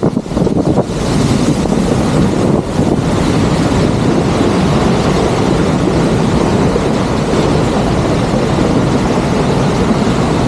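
Loud, steady rush of a waterfall close up, water plunging into its pool, with wind buffeting the microphone.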